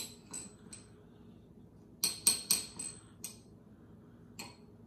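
Metal spikes clinking as they are handled and set down on a stone countertop: scattered sharp metallic clicks, with a quick run of several about two seconds in and a last one near the end.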